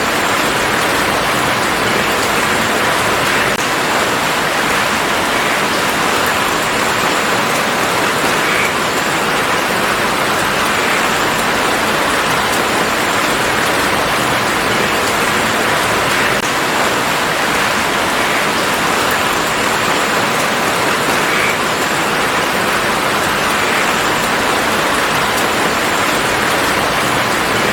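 Steady rain falling on a garden, an even hiss of many drops without a break.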